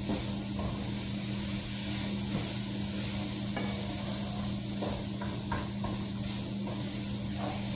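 Steady hiss of food cooking in a pot on the stove, over a steady low hum, with a few light clicks and knocks of a utensil in the middle.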